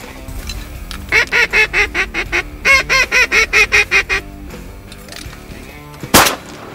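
A hand-blown duck call sounded in two quick runs of loud, evenly spaced quacking notes, about six a second, over background music. Near the end comes a single sharp bang.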